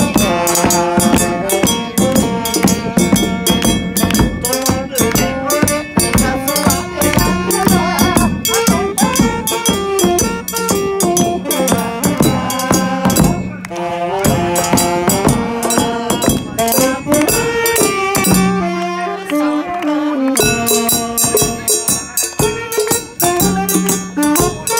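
Chindon-ya street band playing a lively tune: saxophone carrying the melody over the chindon drum rig's small drums and gong and a large bass drum beaten with sticks. The tune briefly breaks off about halfway through, then picks up again.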